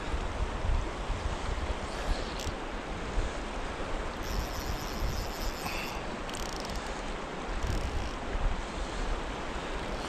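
Steady rush of a fast, riffled river current, with gusts of wind buffeting the microphone as low rumbles.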